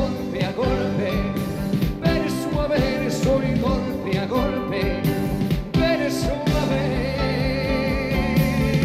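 Music: a band playing a song with a steady beat.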